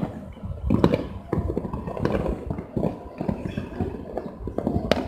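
New Year's firecrackers and aerial fireworks going off across the city: a continuous crackle and rumble of distant bangs, with several sharper, louder reports scattered through.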